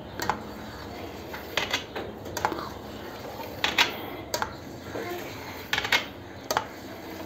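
Knife blade clicking and tapping against the bottom of a metal baking tray while cutting set starch pudding into cubes: about a dozen sharp, irregular clicks, several in quick pairs.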